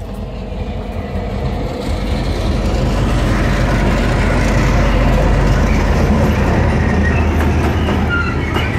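Macosa-built, EMD G22AC-type diesel-electric locomotive passing at low speed, its EMD 12-645 two-stroke diesel engine sounding low and steady and growing louder over the first few seconds as it comes abreast. Container flat wagons roll on behind it, with a few short high squeaks near the end.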